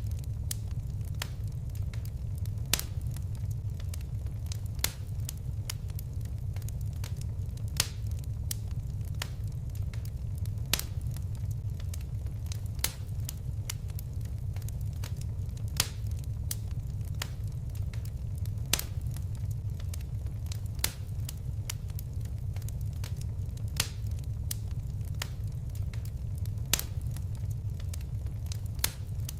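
Crackling wood fire: a steady low rumble of flames with frequent small snaps and a louder sharp pop every two to three seconds.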